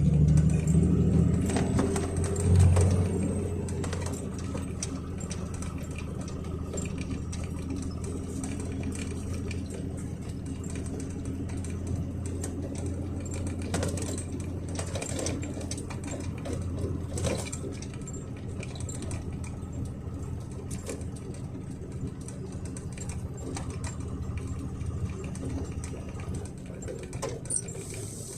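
Truck engine running steadily, heard inside the cab, with irregular creaking and clicking from the cab. The engine is louder for the first few seconds, then settles lower.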